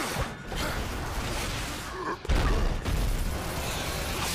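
Cartoon action sound effects over a dense, rumbling mix, with a sudden heavy boom a little past halfway that stays loud afterwards.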